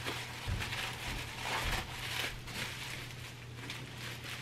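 Plastic bubble wrap rustling and crinkling as it is pulled off a small ceramic teacup, with a couple of dull bumps from handling in the first two seconds.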